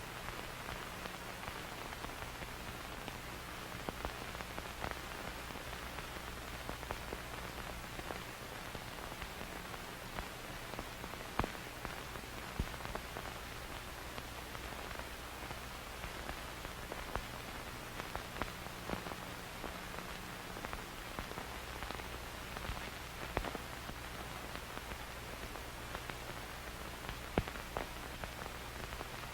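Film static: a steady hiss with scattered crackles and a few louder pops, over a low steady hum.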